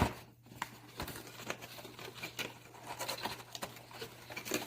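Packaging being handled and unwrapped: scattered small crinkles, taps and clicks, with a sharper click near the end, over a faint steady hum.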